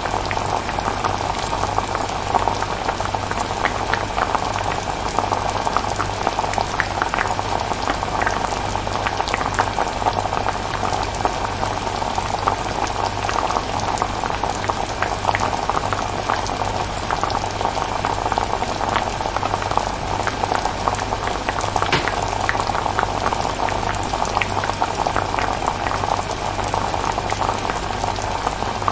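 Pan of chilli bubbling as it simmers: a continuous stream of small pops and crackles, over a steady low hum.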